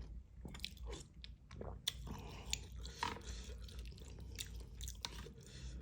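A person chewing a mouthful of beef noodle soup close to the microphone: wet, irregular mouth clicks and crunches.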